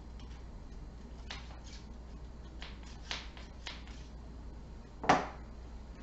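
Light clicks and scrapes of a clearing rod being worked through the barrel of an Alfa Proj 251C .22 revolver, then one louder click about five seconds in.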